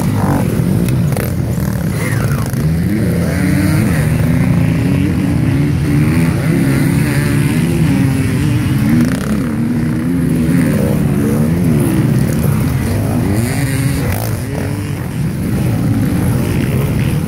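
Several enduro motorcycles racing past close by, their engines revving up and down with the notes overlapping.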